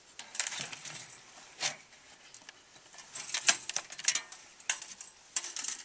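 Bucket light trap for moths being opened: its metal vanes and funnel top handled and lifted off the plastic bucket, giving scattered knocks, clicks and scrapes that come thicker from about three seconds in.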